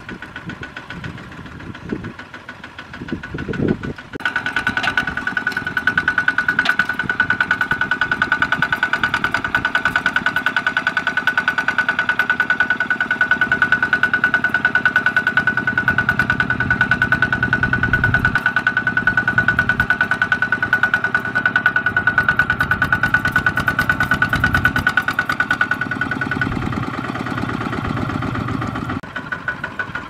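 Single-cylinder diesel engine of a two-wheel walking tractor chugging under load as it pulls a trailer heavy with rice sacks. It gets louder about four seconds in, where a steady high whine rides over the fast, even firing, and it eases off near the end.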